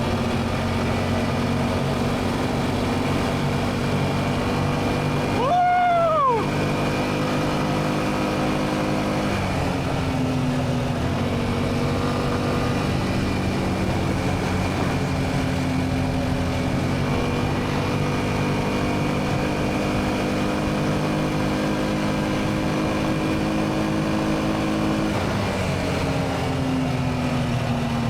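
Honda Rincon 650 ATV's single-cylinder engine running under way, its pitch dropping about nine seconds in and climbing again near the end. A short, loud rising-and-falling whoop cuts in about six seconds in.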